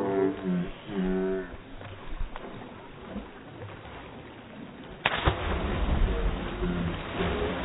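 A person plunging into seawater after a jump from a rock, slowed down by slow-motion playback: a sudden crash of water about five seconds in, followed by a long, low wash of splashing. Near the start, people's voices slowed to a deep, drawn-out pitch.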